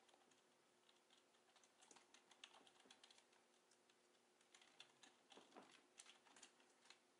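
Faint, irregular light clicking and tapping from a sugar glider running in a homemade exercise wheel as the wheel spins.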